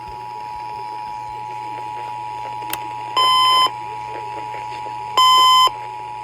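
Emergency Alert System two-tone attention signal, two steady tones sounded together, sounding a monthly test. Over it, a separate sharper electronic beep sounds twice, about two seconds apart.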